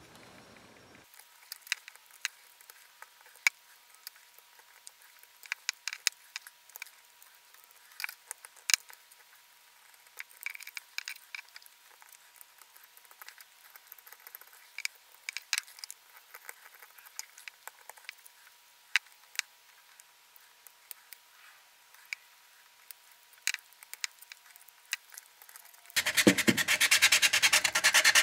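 Utility knife blade cutting and scraping into a carved whitewood lure blank: scattered small clicks and scrapes. About two seconds before the end, sandpaper starts rubbing the blank by hand in quick back-and-forth strokes, much louder.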